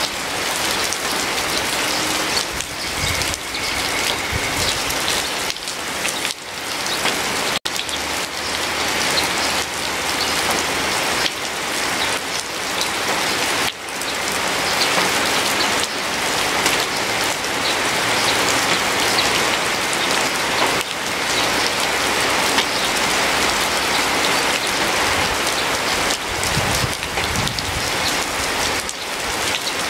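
Steady rain falling, an even, dense patter with one momentary break about a third of the way in.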